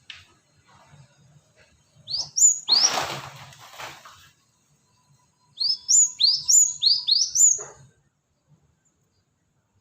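Cinereous tit (gelatik batu) calling: short, sharp up-slurred chirps, a pair early and then a run of five in quick succession. A noisy rustling burst lies under the first pair.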